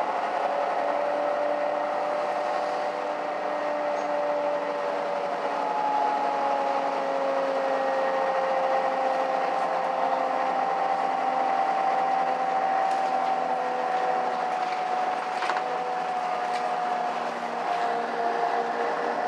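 Mercedes-Benz O530 Citaro city bus heard from inside the passenger cabin: a steady drivetrain hum with two whining tones that slowly drift in pitch. A few light rattles and clicks come in the second half.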